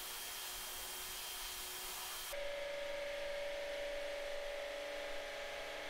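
A steady hiss, then from about two seconds in a steady machine hum with a clear tone that holds even to the end.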